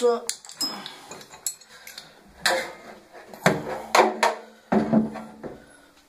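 Irregular metallic clanks and knocks of a hand tool working on the stainless-steel drum of a front-loading washing machine, some ringing briefly, as the 10 mm bolts holding the drum spider are undone.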